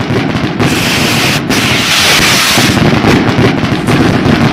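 Stored fireworks going off in a fire: a loud, dense, continuous crackle of rapid pops and bangs.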